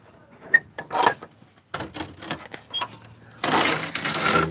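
Camera handling noise: the microphone bumping and rubbing against fingers and a shirt, with scattered clicks and knocks and a loud rustle about three and a half seconds in that lasts about a second.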